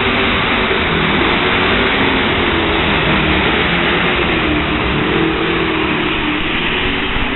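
Competition pulling tractor's engine running flat out under load, loud and continuous, its pitch sagging and climbing back about midway.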